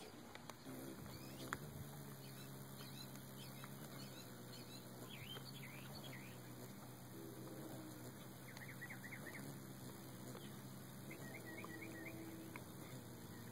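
Hummingbird at a feeder giving faint, high, squeaky chittering chips in short quick runs, several times over, above a steady low hum.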